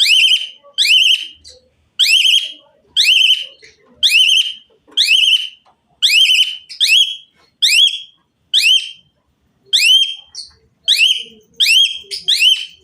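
Pied starling (jalak suren) singing: loud whistled notes repeated about once a second, each sweeping upward in pitch.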